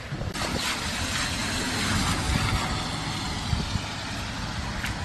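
Cars driving along a flooded road: engine rumble under a steady hiss of tyres throwing up standing water.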